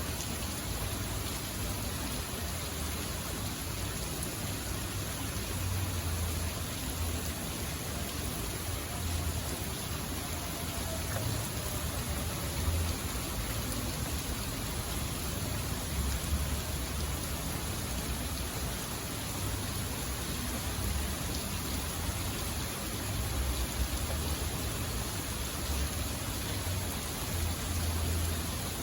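Steady rain falling in a thunderstorm, with irregular low rumbles underneath.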